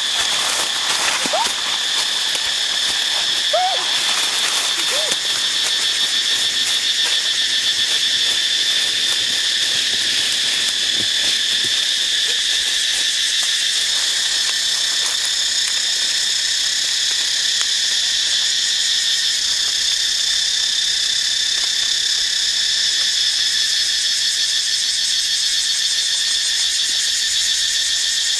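Steady, high-pitched insect drone in dry forest, unbroken and even in level, with a few short rising chirps in the first few seconds.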